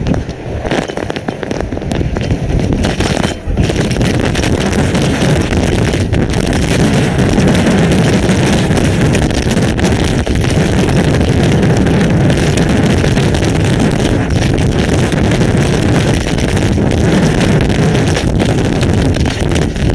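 Severe thunderstorm on an outdoor webcam microphone: strong wind buffeting the microphone under dense, crackling impacts of wind-driven hail and rain. It thickens about three and a half seconds in, then holds steady and loud.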